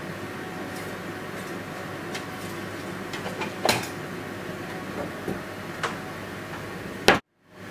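Kitchen clatter: a handful of light clinks and taps of dishes or utensils over a steady background hum, the loudest about three and a half seconds in. The sound drops out completely for a moment near the end.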